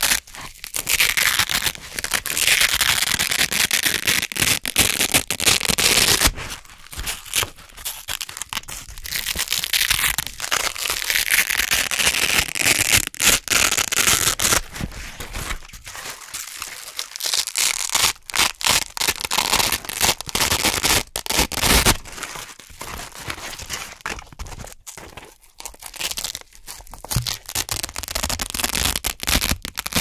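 Velcro hook-and-loop fastener, a black loop circle on a red hook strip, being peeled apart and pressed back together again and again close to the microphone: dense, crunchy ripping crackle, with a few brief quieter pauses between pulls.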